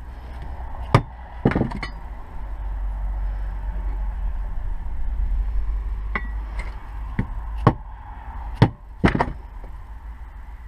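Hammer tapping on a tube drift, driving a new oil seal square into a differential housing: about ten sharp metal knocks, three close together near the start, then a run of seven a few seconds later.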